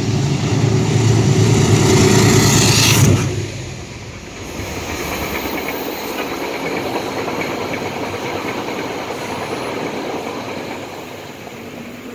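GE Genesis P32AC-DM locomotive running past close by with a loud, steady hum, cut off suddenly about three seconds in as it passes beneath. Then the Bombardier Shoreliner passenger coaches roll past with a steady rumble that fades near the end.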